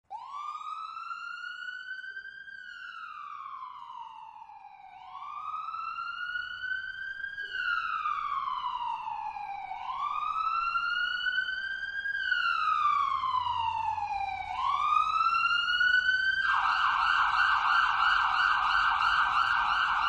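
Ambulance siren on a slow wail, its pitch rising and falling about every five seconds and growing steadily louder, then switching to a rapid yelp about three-quarters of the way through.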